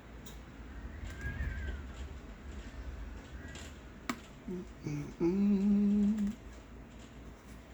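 A click, then a couple of short hummed sounds and one held low hummed note of about a second from a person's voice.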